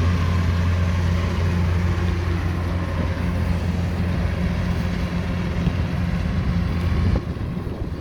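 Rice harvester engine running steadily with a low hum, its level dropping suddenly about seven seconds in.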